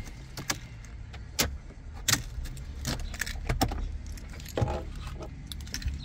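A bunch of car keys on a ring, with a Mercedes key fob, jangling, with a series of sharp clicks as the fob is handled at the dashboard ignition slot. A low steady hum runs underneath.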